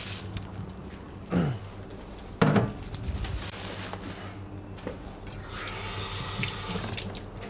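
Water running from a tap into a kitchen sink, strongest for a couple of seconds near the end, over a steady low hum.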